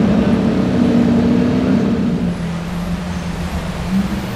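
Lamborghini Aventador's V12 running at low speed in a tunnel: a steady low engine note that drops a little about halfway through and rises slightly near the end.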